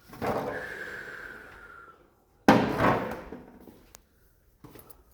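Two loud knocks about two seconds apart, the second the louder. The first rings on with a single tone that fades over about two seconds.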